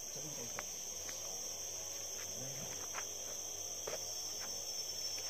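Steady high-pitched chorus of crickets, with a few faint clicks.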